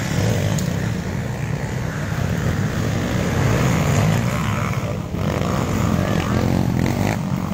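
Four-stroke dirt bike engines running on the race course, a steady low drone that swells slightly around the middle.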